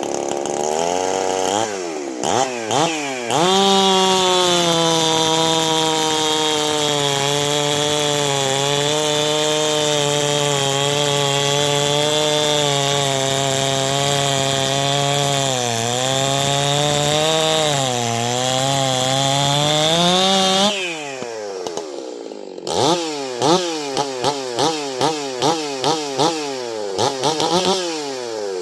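STIHL MS 651 91 cc two-stroke chainsaw engine: a few quick revs, then held at high revs for about seventeen seconds with the pitch sagging and recovering now and then. After that it drops to idle and is blipped sharply about eight times in quick succession.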